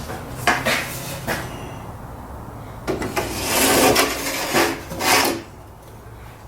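Wooden drawer box being slid onto Blum under-mount drawer slides. A few sharp knocks come near the start, then about two seconds of rubbing and scraping as it slides in.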